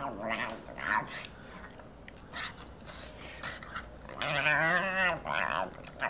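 Excited pug making wavering, talk-like vocal noises: a few short grunts in the first second, then a longer warbling moan a little after four seconds in, followed by a shorter one.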